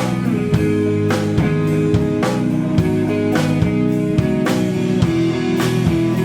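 Rock band playing live: guitars and bass over a drum kit, with drum and cymbal hits on a steady beat about twice a second.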